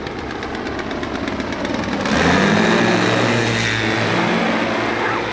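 Engine and pusher propeller of a motorized hang-glider trike flying low overhead, getting louder about two seconds in as it passes, with its pitch dropping as it goes by.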